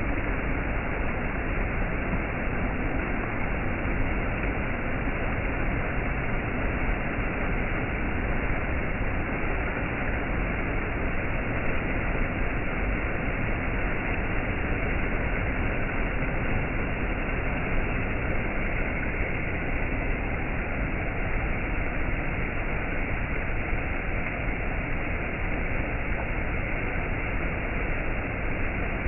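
Waterfall: a steady rush of falling water, unchanging throughout.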